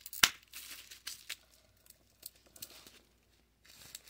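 Close handling noise: rustling and crinkling with a few sharp knocks, the loudest just after the start, and a short quiet spell past the middle.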